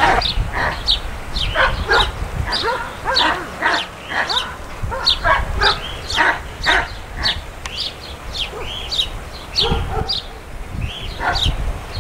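German Shepherd dog barking and yipping in a rapid, unbroken string of short high-pitched calls, about two a second.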